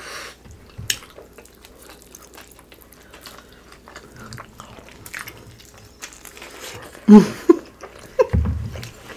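Close-miked eating sounds: soft chewing and small wet mouth clicks as fish tacos are eaten. Near the end come a few short hummed 'mm' sounds, the last one low and loud.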